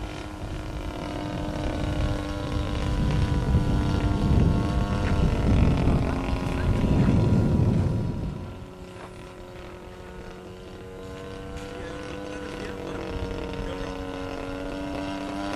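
Engine and propeller of a radio-controlled Giles 202 aerobatic model plane in flight, one engine note whose pitch slides up and down as it manoeuvres. It grows louder, with a heavy low rumble, over the first eight seconds, then drops away suddenly and carries on more quietly.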